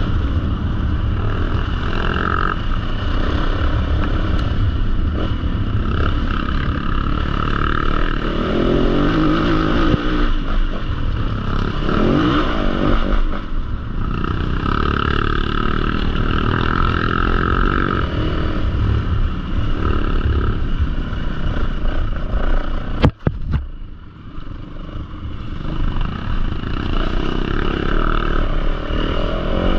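Enduro motorcycle engine running over a rough trail, its pitch rising and falling as the throttle is opened and closed, over a steady low rumble. A single sharp knock about three-quarters of the way through, after which the sound briefly drops.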